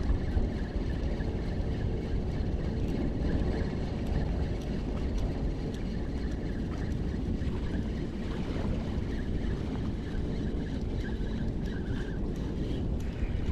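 Wind buffeting the microphone: a steady low rumble that flutters in loudness, with a faint wash of water.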